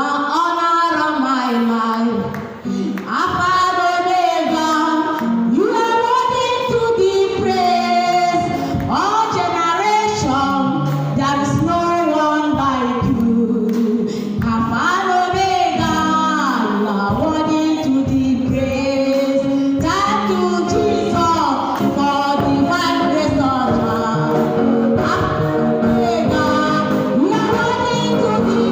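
Gospel singing led by women's voices over instrumental accompaniment, continuing without a break.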